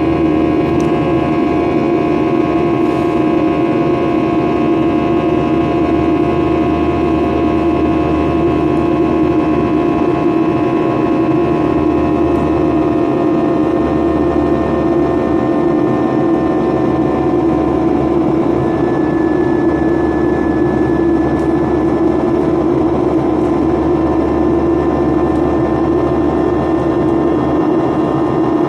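Boeing 737 jet engines heard from inside the passenger cabin: a steady, loud drone with several whining tones layered over it. The tones sink slightly in pitch over the stretch.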